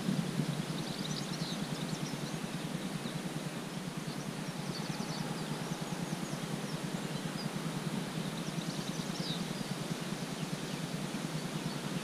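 Steady low rumble of wind on the microphone, with faint small-bird chirps a few times, about a second in, around the middle and near the end.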